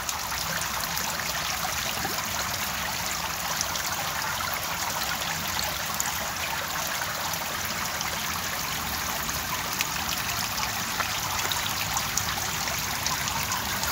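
Water steadily trickling and dripping into shallow plastic tubifex-worm culture trays, drops splashing on the water surface.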